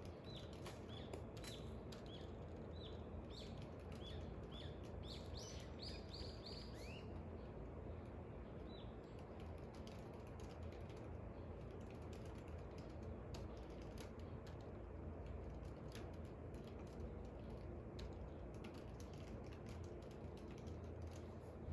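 A bird chirping a quick run of short repeated notes for the first seven seconds or so, with one more chirp a little later. Scattered light clicks run throughout, over a steady low background hum.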